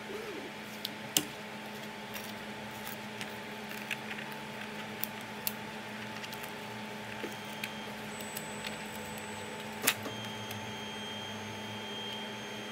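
Steady fan hum of a Twotree Bluer 3D printer. Scattered sharp clicks and snaps come from the printed plastic shark and the flexible build plate being handled, the loudest about a second in and near ten seconds in.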